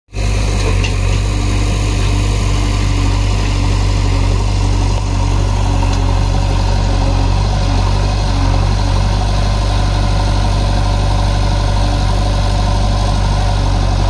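Diesel engines of farm tractors and a JCB 3DX backhoe loader idling steadily.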